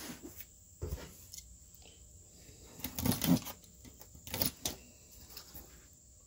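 Handling noise close to the microphone: a few short rustles and knocks, the loudest cluster about three seconds in.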